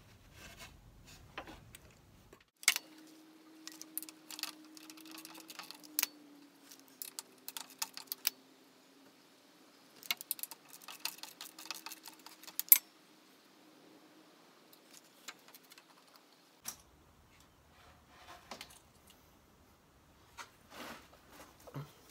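Irregular sharp metallic clicks and clinks of small hard metal objects being handled, in clusters. A faint wavering hum runs under them through the middle stretch.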